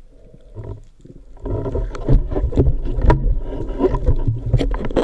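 Underwater handling noise: after a quiet, low rumbling start, a dense run of knocks, clicks and rubbing begins about a second and a half in as gloved hands and the speargun grapple with a freshly caught fish close to the camera.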